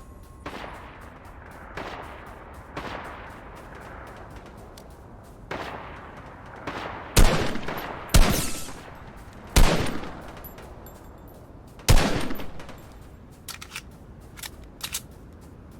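In-game gunshots from a shooter: spaced single shots, each trailing off in a long echo. The four loudest come between about seven and twelve seconds in, and a few faint clicks follow near the end.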